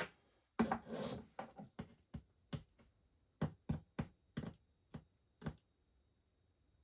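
A run of sharp clicks and knocks with a short rustle near the start, from tools and small parts being handled on a workbench during wire and connector soldering work. The knocks stop about five and a half seconds in.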